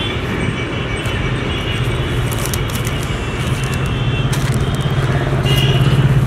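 Motor vehicle engine running nearby, a low hum over outdoor traffic noise that grows louder through the second half.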